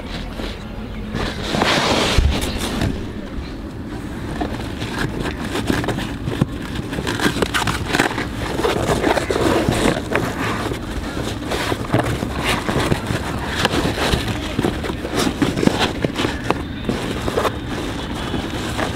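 Hands fitting a quilted faux-leather and coil-grass car floor mat into a footwell: rustling and rubbing of the mat, with many short knocks as it is pushed against the floor and pedals, and a louder rush about two seconds in.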